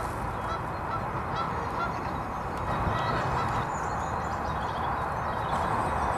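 A dense, continuous chorus of many birds calling at once, with faint high twittering chirps scattered above it.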